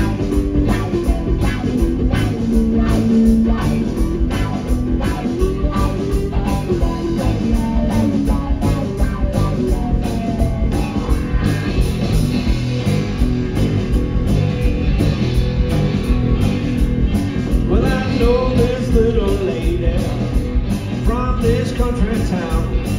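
Live blues-rock band playing: amplified electric guitars over a steady drum-kit beat, without transcribed vocals.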